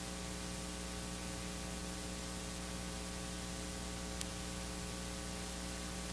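Steady electrical mains hum with hiss from a stage sound system while it is still being connected, with one faint click about four seconds in.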